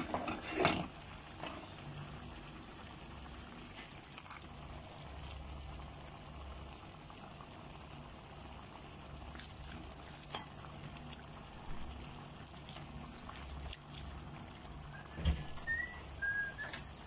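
Tomato-based sweet and sour sauce simmering in a pan, a steady bubbling over a low hum, with a few sharp clicks and knocks as pieces of fried tuna are set into the sauce.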